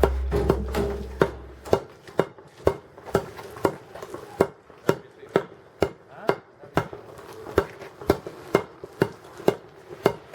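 Steady, even strikes on freshly laid asphalt, about two sharp blows a second, typical of a worker tamping the new surface by hand.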